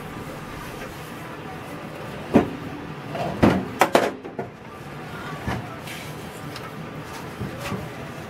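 Metal clunks and scraping as a Kohler single-cylinder engine is lifted out of a garden tractor's steel frame: a sharp knock about two seconds in, a quick cluster of knocks around three and a half to four seconds, then a few lighter bumps.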